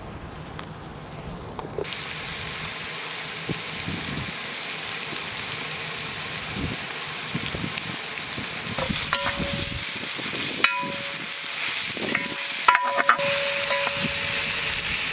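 Cauliflower florets sizzling in hot oil in a large metal pot, the sizzle growing louder about two seconds in. From about nine seconds a ladle stirs and scrapes against the pot, with several ringing metal clanks.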